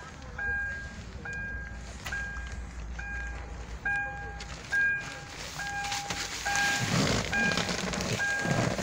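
SsangYong Actyon's warning chime beeping at an even pace, a little more than once a second, the reminder that sounds with the driver's door open. From about seven seconds in, rustling and knocks join it as someone gets into the driver's seat.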